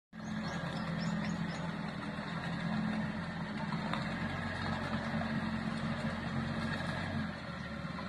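Four-wheel-drive farm tractor's engine running steadily under load as the tractor drives through a flooded rice paddy.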